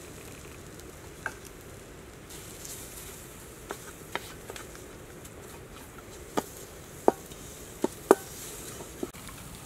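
A wooden spatula knocking and scraping on a nonstick frying pan as it stirs and spreads a thick paste, giving a series of sharp taps that come more often and louder in the second half.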